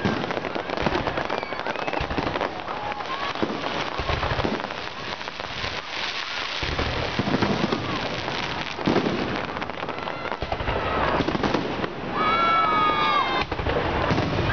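Fireworks display: dense crackling of bursting aerial shells, with deep booms every few seconds. A high, wavering pitched tone sounds briefly near the end.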